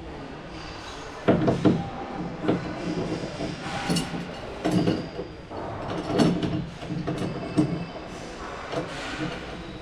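A series of irregular knocks and thuds, about a dozen, coming at uneven intervals over a low background.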